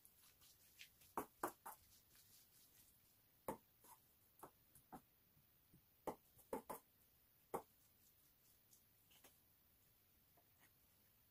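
A metal spoon clinking and scraping against a stainless steel bowl as rice is mixed, in scattered light clicks, several in quick pairs, with quiet stretches between.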